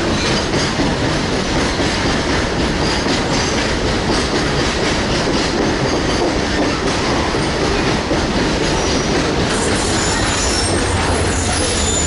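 Passenger train running on the rails beside the platform: a steady loud rumble of wheels on track, with a faint high squeal from the wheels coming in near the end.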